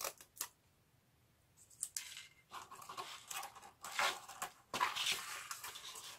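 Scissors cutting cardboard: two sharp snips at the start, a short pause, then a run of crunching cuts and scraping of the cardboard, loudest about four and five seconds in.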